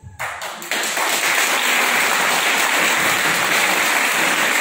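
Audience applauding, breaking out sharply within the first second and then holding as steady, dense clapping.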